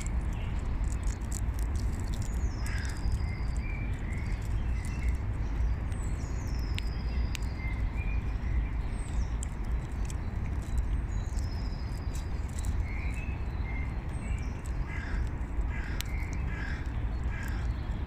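Wild birds singing in spring: a high whistled phrase sliding downward comes three times, among short scattered calls, over a steady low rumble.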